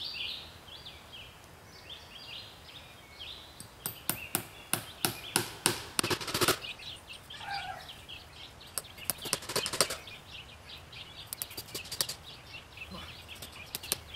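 Hammer tapping nails into a tree trunk to fasten stretched chicken-wire fence, in quick bursts of sharp knocks, several a second, four times over. Birds chirp in the background in the first few seconds.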